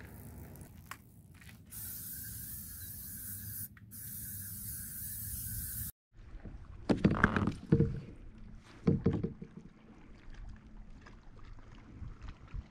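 A steady hiss for about four seconds, broken once by a short gap. Then a kayak on open water: a few loud paddle strokes splashing, with quieter water movement after.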